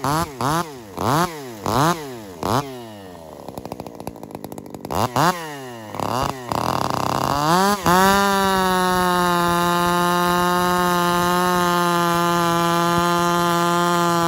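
Husqvarna 372 two-stroke chainsaw blipped up and down through quick revs with a brief drop toward idle, then held steadily at high revs for the second half. The owner says the saw, fitted with a new X-Torque carburettor, is still running lean and suspects a crank seal or base gasket.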